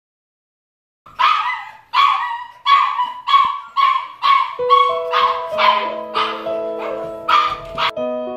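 A puppy barking: a run of about a dozen high, short barks, roughly two a second, starting about a second in. Soft piano music comes in partway through.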